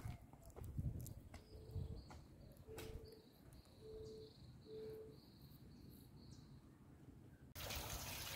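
Quiet outdoor ambience: faint footsteps in flip-flops on gravel, and four short faint calls about a second apart. Near the end a steady hiss comes in.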